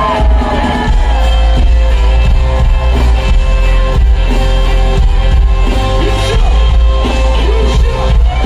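Loud live concert music heard from the crowd: a hip-hop track with heavy bass and sustained synth chords over the festival sound system, with some singing.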